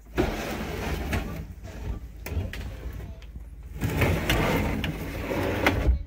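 Wooden drawer box being pushed and slid into its cabinet frame: wood scraping on wood, with a few sharp knocks as it bumps into place.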